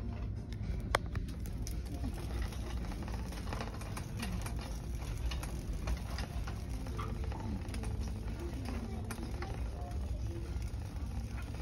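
Indistinct background voices over a steady low hum, with scattered small clicks and knocks and one sharper click about a second in.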